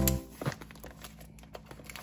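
Background music that stops a moment in, followed by faint clicks and light knocks of a plastic lunch box and metal and plastic cutlery being handled.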